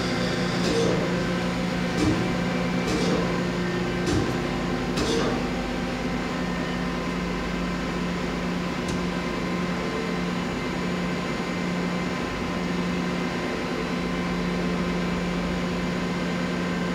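Mori Seiki SL-253B CNC lathe indexing its ten-station turret: about five clunks, roughly one a second, in the first five seconds. A steady hum from the running machine continues throughout.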